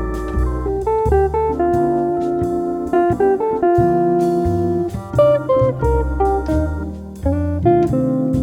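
Background jazz music led by plucked guitar over a walking bass line.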